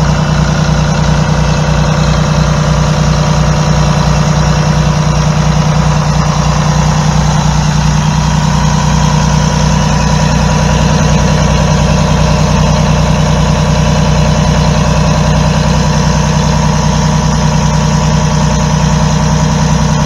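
Diesel engine of a Blue Bird Wanderlodge motorhome idling steadily, heard close at the exhaust tailpipe.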